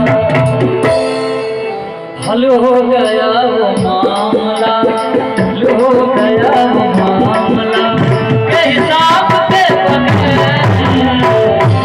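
Live folk music with a steady drum beat and melodic lines over it; the music thins out and drops away about two seconds in, then comes back in full.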